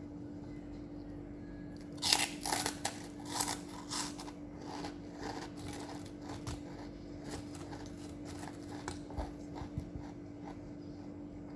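A person biting into crunchy food and chewing it close to the microphone: a burst of loud crunches about two seconds in, then quieter crunching chews, roughly one or two a second.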